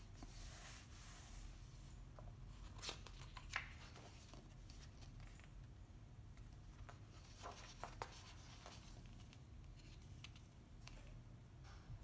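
Pages of a thick printed book being turned by hand: faint paper rustling and sliding in the first two seconds, then a few soft taps and flicks around three to four seconds in and again around eight seconds, over a low steady hum.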